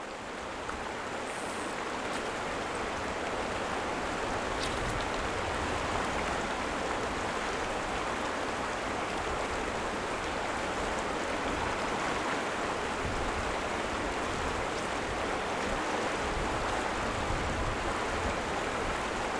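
River water running steadily over rocks and through shallow riffles.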